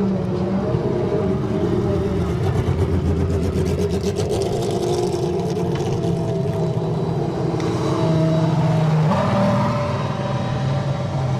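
Historic Formula 1 race car engines running at idle, a steady deep note with the pitch shifting a few times near the end.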